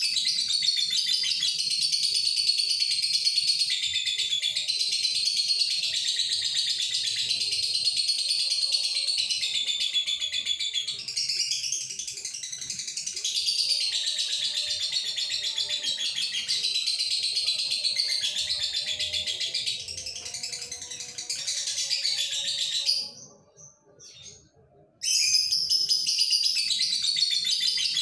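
Male Fischer's lovebird singing a long, unbroken, high-pitched chattering song, the sustained 'durasi' singing of a male in breeding condition. It breaks off for about two seconds near the end, then starts again.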